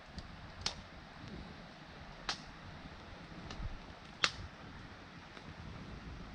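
Three short, sharp clicks, spaced a second or two apart, over a faint steady background.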